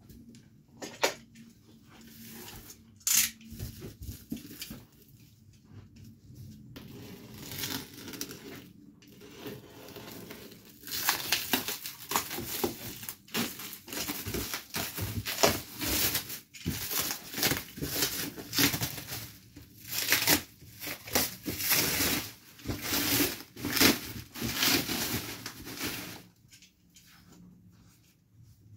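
A cardboard shipping box and its packing being torn open and handled: irregular tearing, rustling and crinkling with a couple of sharp knocks in the first few seconds, growing busier and louder past the middle, then dying down near the end.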